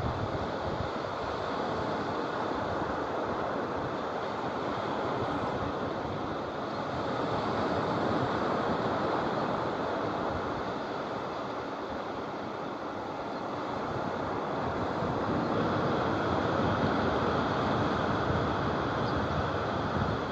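Surf breaking and washing onto a sandy beach: a steady wash of sea noise that swells louder about halfway through and again near the end. Wind rumbles on the phone's microphone.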